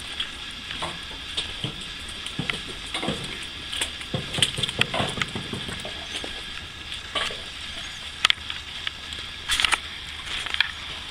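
Steady wet pattering hiss with irregular clicks, knocks and squelches from footsteps in wet mud and straw.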